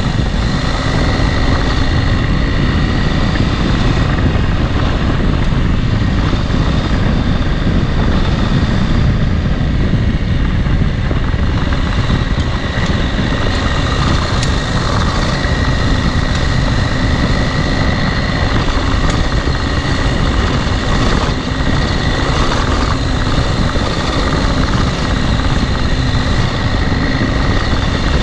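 Adventure motorcycle under way at a steady pace: engine running with a heavy rush of wind over the microphone, level and unbroken.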